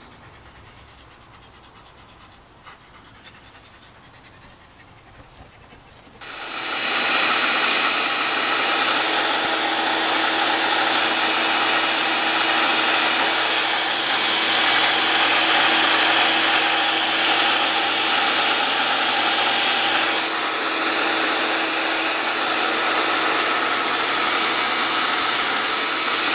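Leaf blower switched on about six seconds in and running steadily, a rushing air noise with a steady whine, blowing on a wet dog's coat to dry it.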